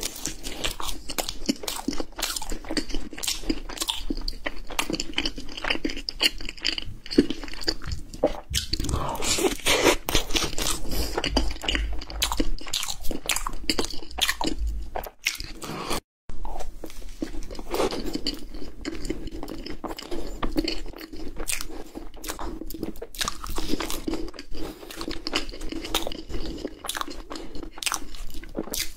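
Crisp crunching bites and chewing of crusted cream puffs (puff cake) held close to the microphone. The sound drops out briefly a little past halfway, then the crunching resumes.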